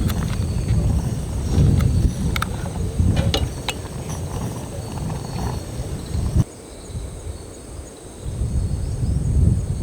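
Strong wind buffeting the microphone in gusts, with a few light clicks in the first few seconds. The wind noise drops off abruptly about six and a half seconds in, then builds again near the end.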